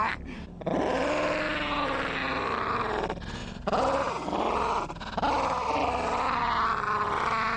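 A man's voice imitating a dog's snarling growl, a long rolling "rrrr" held in three stretches with short breaks about three and five seconds in.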